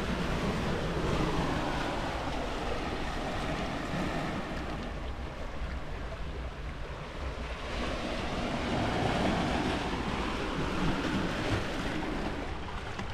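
Sea waves washing in over a stony beach, the surf swelling and ebbing twice, over a low wind rumble on the microphone.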